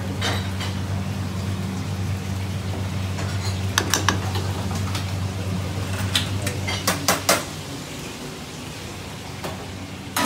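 Metal spoon stirring and clinking against a pan of lentil dal, with several sharp clatters of metal on metal. Under it runs a steady low hum, which fades about three-quarters of the way through.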